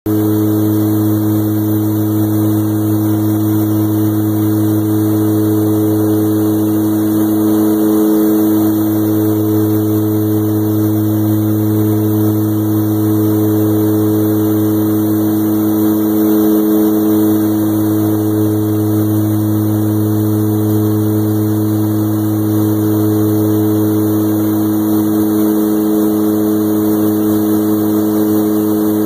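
Aircraft engine droning steadily, heard from inside the cockpit: a constant low hum of several steady tones, with the lowest tone dipping briefly a few times.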